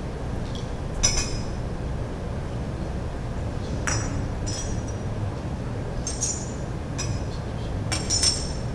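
Small glass cruets and a metal chalice clinking together several times as the cruets are handled and poured from, each clink short with a high ringing tail.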